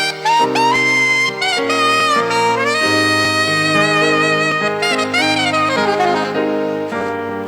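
Saxophone playing a slow, free-flowing melody with vibrato and sliding notes over held chords.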